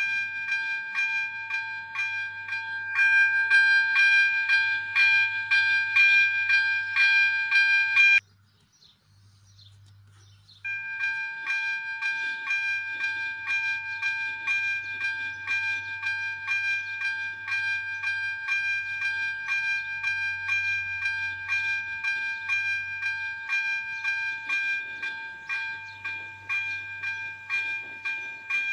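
ZV 02 electric bell of an AŽD 97 level-crossing warning signal ringing in rapid, even strokes, about two a second. It falls silent for about two and a half seconds a third of the way through, then rings on.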